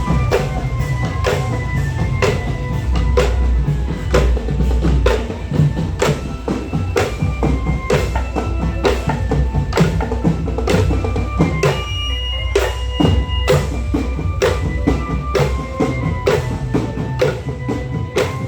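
Percussion-led music: bass drum and snare beating about twice a second under a melody that steps from note to note, with a steady deep bass throughout.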